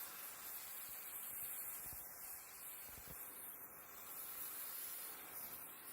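Oxy-acetylene torch with a rosebud heating tip, hissing faintly and steadily as it heats the frame rail.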